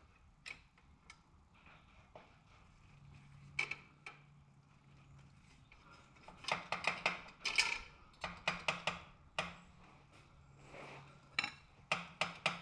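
Hand tools clicking and clinking on the metal shifter linkage of a motorcycle: a few single clicks, then quick runs of clicks from about halfway through and again near the end.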